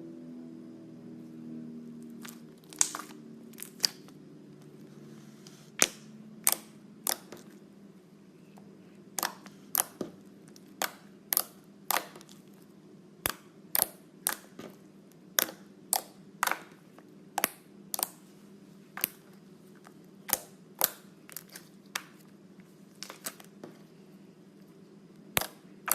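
Slime being pressed and worked by hand, giving off a long series of sharp clicking pops from trapped air, about one or two a second, over a faint steady low hum.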